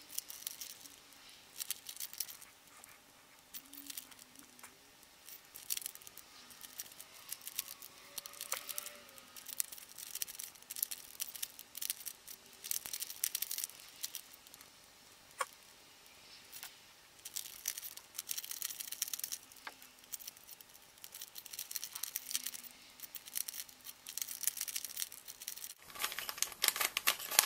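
Rubik's cube being turned quickly in a solve, its plastic layers clicking and clattering in rapid runs of turns broken by short pauses.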